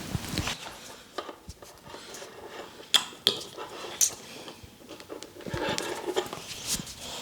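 Hands at work in a head and neck massage: soft rubbing and rustling, with a few sharp clicks or pops, the loudest three close together about three to four seconds in.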